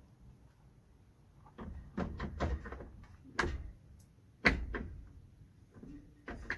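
Hard plastic clunks and scrapes as a Greenworks 60V battery pack is pushed and worked against the battery slot of a Powerworks 60V chainsaw: a quick run of knocks, then single sharp hits, the loudest about four and a half seconds in. The battery's rails are too wide, so it will not seat.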